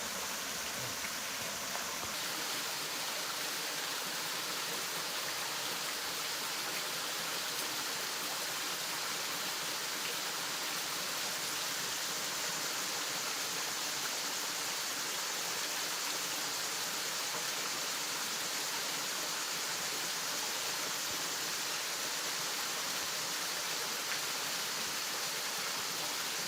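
Waterfall water rushing steadily, an even hiss of falling and splashing water.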